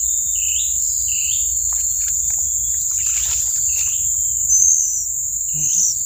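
Steady, high-pitched drone of forest insects with short chirps repeating about twice a second. A rustle comes about three seconds in as a hand reaches into a tree hollow, and a brief shrill squeak follows shortly after, the loudest moment.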